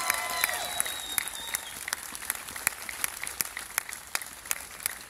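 Outdoor audience applauding, with a few cheers at the start; the clapping thins out to scattered claps.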